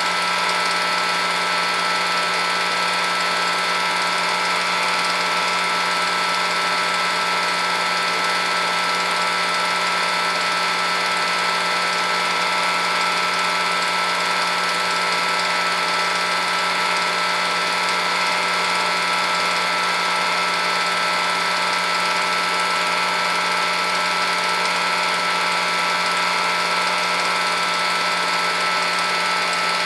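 Film projector running: a steady mechanical whir with several fixed tones that never change.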